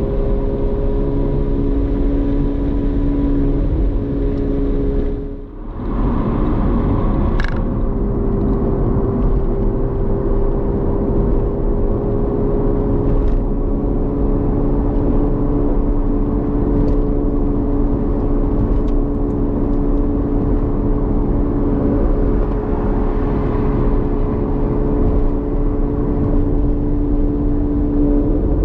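Ferrari 458 Spider's 4.5-litre V8 engine and exhaust running at steady revs at highway speed, over road and wind noise. The sound dips briefly about five seconds in, then holds an even pitch.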